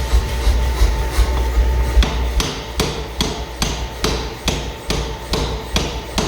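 Blacksmith's hammer striking metal on an anvil in an even rhythm of about two and a half blows a second, each with a short metallic ring, beginning about two seconds in. Before the hammering there is a low hum with clatter, which stops as the blows begin.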